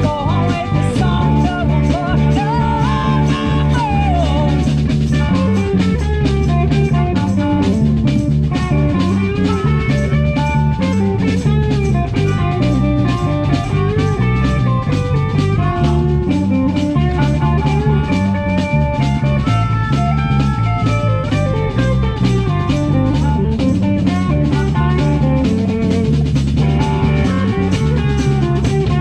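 Live blues-rock band playing an instrumental passage: drum kit keeping a steady beat under bass and electric guitar, with a lead line of bent and held notes.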